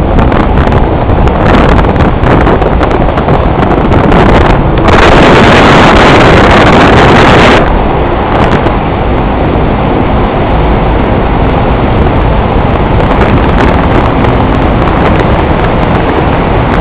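Loud, steady road and wind noise of a car driving through a concrete road tunnel, heard from inside the moving car. A louder rush of noise lasts about three seconds near the middle.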